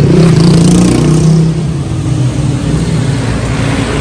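A motor vehicle engine running close by, its pitch shifting, loudest in the first second and a half and then steady.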